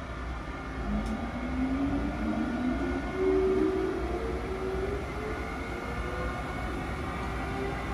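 Amtrak ACS-64 electric locomotive starting to move, its traction motors giving a whine that climbs steadily in pitch as it accelerates, over a steady low rumble.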